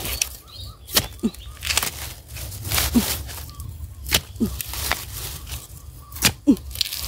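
A long-handled iron digging blade chopping down into the soil and roots at the base of a bamboo shoot, about five sharp blows a second or two apart, cutting the shoot free from the clump.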